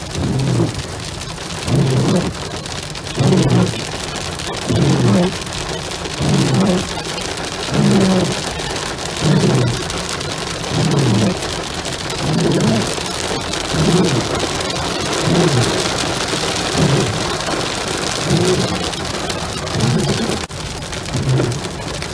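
Hail and rain hitting a car's roof and windshield, heard from inside the car as a dense, steady hiss that thickens around the middle. Over it, the windshield wipers sweep about every one and a half seconds, each stroke a low swish.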